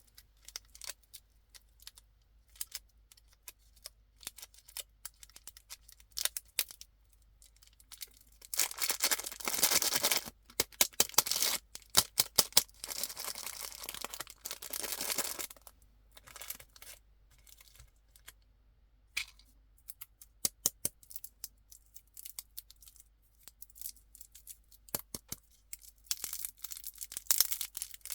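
Candy packaging being handled and opened by hand: scattered light taps and clicks, with longer stretches of wrapper noise about nine and thirteen seconds in, and again near the end.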